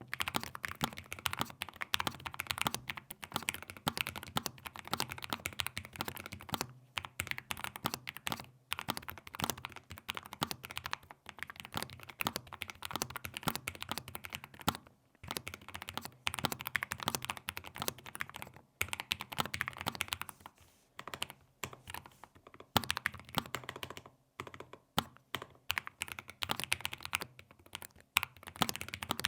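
Typing on a Lofree Flow low-profile mechanical keyboard: fast runs of key clicks broken by brief pauses.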